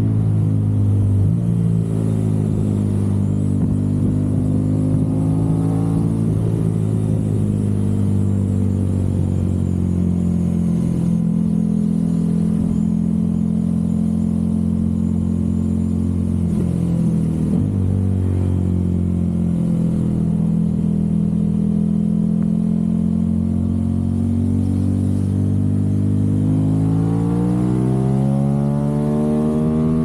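Aprilia RS660 parallel-twin engine breathing through a Mivv Delta Race aftermarket exhaust, heard from on the bike while riding at moderate, fairly steady revs. The revs drop briefly about halfway through and climb steadily near the end as the bike accelerates.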